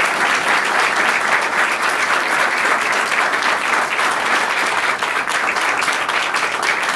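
Audience applauding, many hands clapping steadily without a break.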